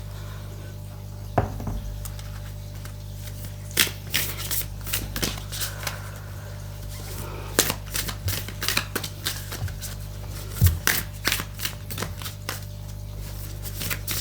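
Irregular quick clicks and taps of small hard objects, coming in dense clusters from about four seconds in, over a steady low hum.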